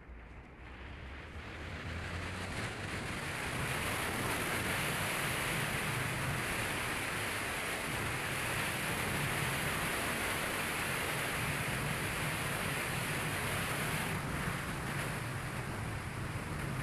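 Ford Fiesta ST driving at speed: a steady rush of wind and tyre noise that builds over the first few seconds as the car picks up speed, with a faint low engine hum beneath.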